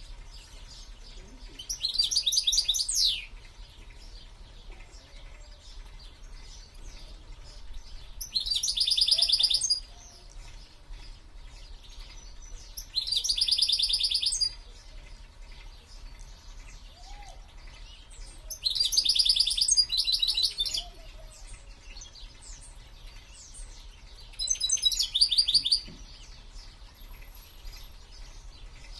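A caged songbird singing five short phrases of rapid, high trilled notes, one every five or six seconds.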